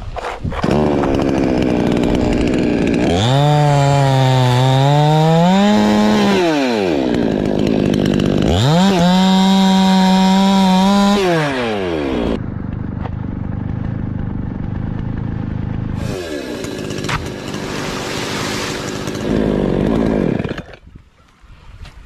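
Chainsaw cutting through a coconut palm trunk. It revs high twice, its pitch climbing during the first cut and holding high during the second. It then drops back to idle after about twelve seconds and stops near the end.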